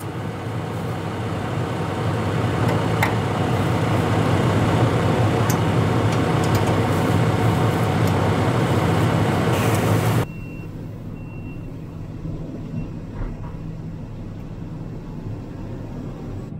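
Tractor diesel engine (Fendt 942 Vario) running steadily close by, with a few light clicks. About ten seconds in it drops to a much quieter, muffled engine hum heard inside the tractor cab, with a few short high beeps.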